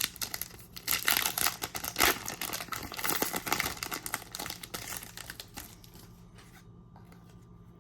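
Trading card pack wrapper being torn open and crinkled by hand, a dense crackling rustle that dies away about six seconds in.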